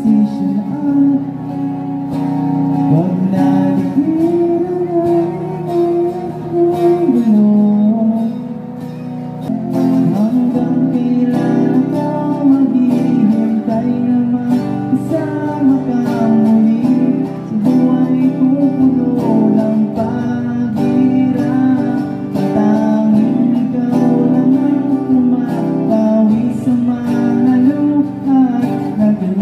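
A man singing into a microphone while strumming a small headless travel guitar, both amplified through a portable speaker. He holds one long note a few seconds in.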